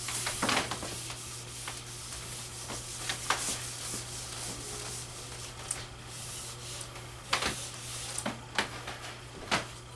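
Handheld whiteboard eraser wiping marker off a whiteboard: a dry rubbing swish in irregular strokes, some sharper swipes standing out among the steady scrubbing.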